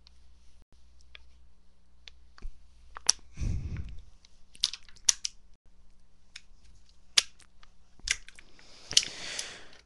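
Aluminium drink can being squeezed and crushed by hand: scattered crinkles and sharp pops of the thin metal giving way, with a denser run of crackling near the end.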